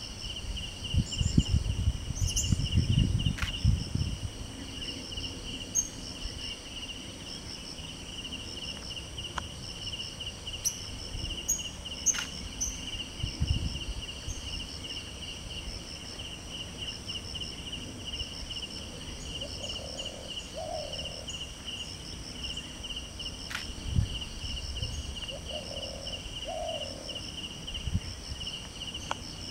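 A steady chorus of insects: a high, pulsing chirp repeating about three times a second, with a fainter, higher pulsing call above it. Low rustling thumps stand out in the first few seconds, with single ones about halfway through and again near the end.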